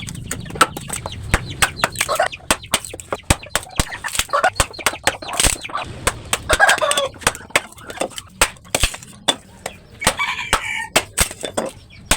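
Chickens clucking and calling a few times, amid frequent sharp clicks and crackles.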